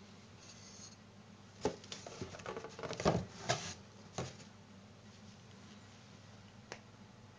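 Handling noise: light knocks, taps and rustling as hands move the small NAS enclosure and its cardboard packaging, most of it between about one and a half and four seconds in, then a single click near the end.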